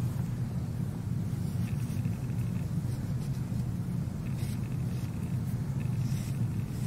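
Steady low rumble of background noise, with a few faint, brief scratching sounds about two, four and a half and six seconds in, from an iron nail being rubbed with an abrasive pad.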